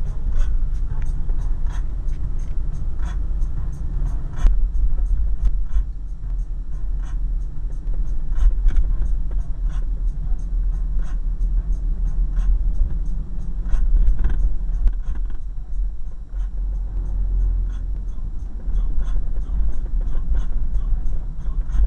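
Low rumble of a car driving, heard from inside the cabin, with frequent irregular light clicks and knocks over it.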